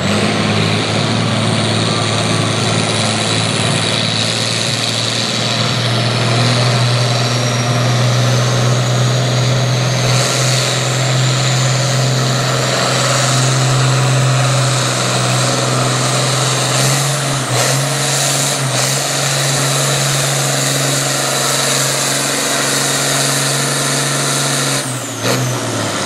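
International Harvester 1066 Turbo farm tractor's diesel engine running hard under full load, pulling a weight-transfer sled, with a steady high-revving drone and a high whine over it. About a second before the end the engine note breaks and drops off as the pull ends.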